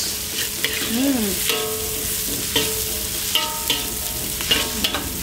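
Sliced chillies, shallots, garlic and galangal sizzling in hot oil in an aluminium wok while a metal spatula stirs and scrapes them, with frequent clicks and scrapes of metal on the pan. A few brief pitched tones come through in the middle.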